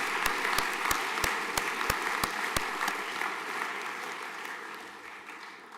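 Audience applause, with a steady beat of sharper claps about three a second over the first few seconds; the applause then dies away toward the end.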